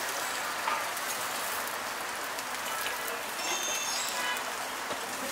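Oil sizzling steadily on a hot griddle as food fries.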